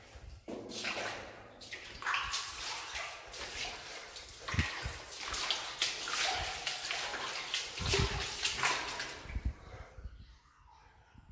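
Footsteps wading and splashing through shallow water on a flooded mine-tunnel floor, a run of irregular strides that stops near the end.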